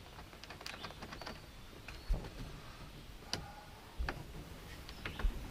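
Irregular clicks, taps and a few dull thumps of hand work on a plastic pontoon-boat seat base as its hinges are fitted and screwed on.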